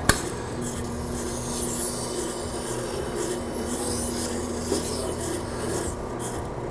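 A hair scissor blade being honed on the AquaHone Stylist II sharpener: a steady rubbing, filing sound of steel against the hone over a faint motor hum, with a sharp click about a tenth of a second in.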